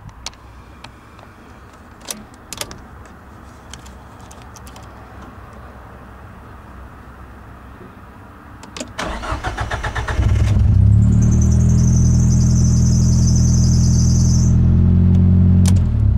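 Nissan CA18DET 1.8-litre turbo four-cylinder cranked by the starter about nine seconds in, catching after about a second and running steadily and loudly, with a high-pitched squeal over it for its first four seconds or so. The owner suspects the engine of a bearing knock (big-end or main bearings) and the squeal of coming from a belt.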